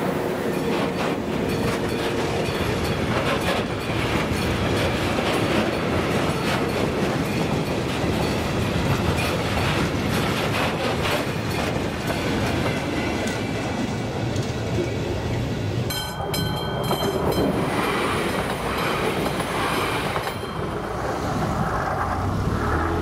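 Freight train passing over a level crossing: the tail of a ČD Cargo class 744 diesel locomotive, then a long string of open freight wagons rumbling by, their wheels clacking over the rail joints.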